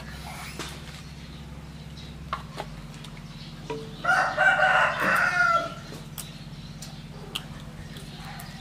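A rooster crows once, about four seconds in, a pitched call lasting under two seconds. It is the loudest sound here, over a steady low hum.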